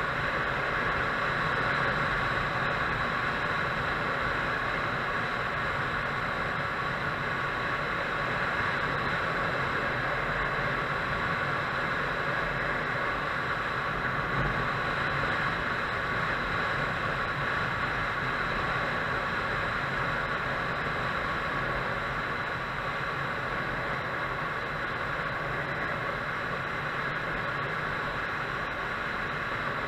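Motorcycle riding at a steady cruising speed: an even rush of wind and road noise mixed with the engine's steady drone, with no change in speed or gear.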